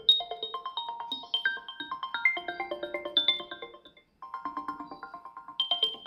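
Background music: an instrumental melody of quick, short repeated notes, with a brief gap about four seconds in.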